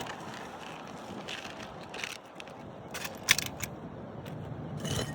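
Old, brittle asphalt roof shingles being handled and lifted, giving a few scattered crackles and scrapes, the sharpest a little past the middle.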